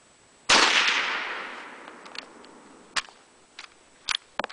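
A single shot from an M91 Carcano bolt-action rifle in 6.5×52mm about half a second in, its report ringing out and fading over a second or more. A few short sharp clicks follow near the end.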